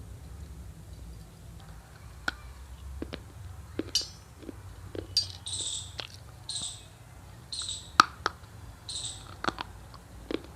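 Sharp crunches and snaps of dry multani mitti (fuller's earth clay) being bitten and chewed, one loud snap about 8 s in. In the middle, a short high squeak or chirp repeats about once a second.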